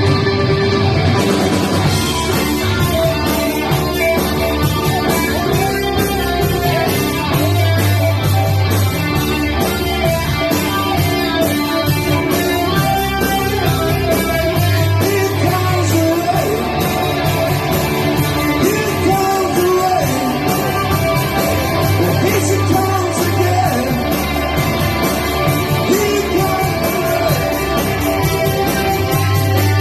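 Rock song played by a band: electric guitar with singing. The high end fills in about a second in.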